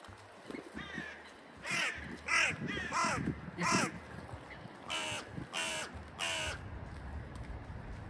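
Hooded crows cawing: a string of about eight harsh caws, the last three coming close together about five to six seconds in.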